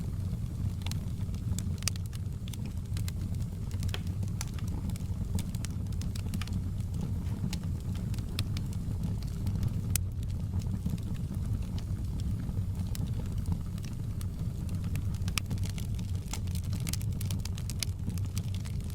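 Wood fire crackling, with frequent irregular sharp pops and snaps over a steady low rumble of the burning.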